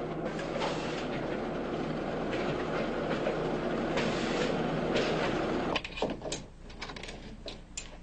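Factory machinery running: a steady, dense clattering din over a low hum, which cuts off suddenly about six seconds in. A few light clicks and knocks follow over quiet room tone.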